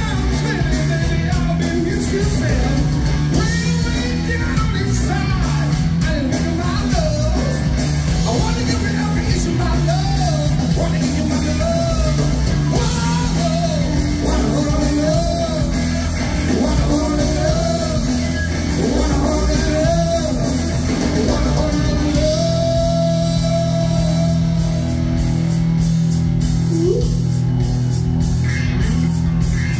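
Live rock band playing: a male lead singer over electric guitar, bass guitar and drum kit. About 21 seconds in the singing stops and the band plays on under a long held note.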